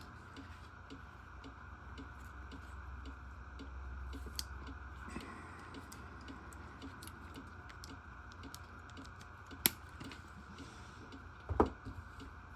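Light clicks and taps of pocketknives being handled, with two sharper clicks near ten and eleven and a half seconds in, over a faint steady hum.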